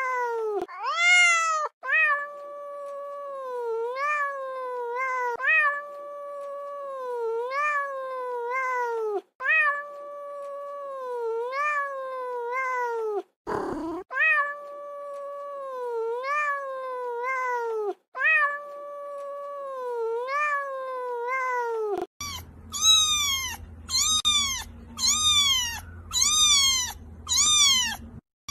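A cat meowing over and over in long calls that rise and then fall, one every second and a half to two seconds, with a brief scratchy noise about halfway. Near the end the sound changes abruptly to shorter, higher-pitched meows about once a second over a low hum.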